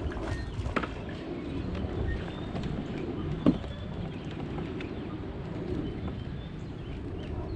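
A bird calling over a steady low rumble, with one sharp knock about three and a half seconds in.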